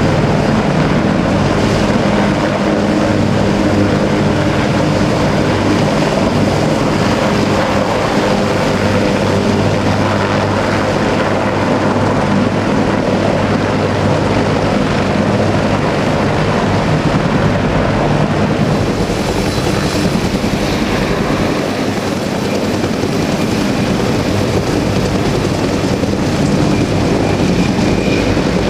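Marine Corps UH-1 Huey and AH-1 Cobra helicopters hovering and moving low close by: loud, steady rotor and turbine noise.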